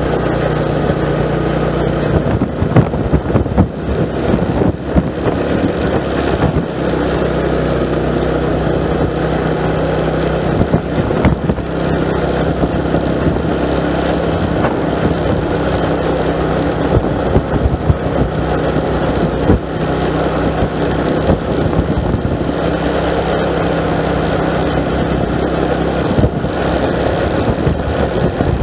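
Motorcycle engine running steadily while being ridden, with irregular knocks and rattles throughout.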